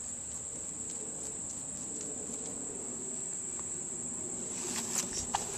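Crickets chirping in a steady, high continuous trill, with a few faint clicks near the end.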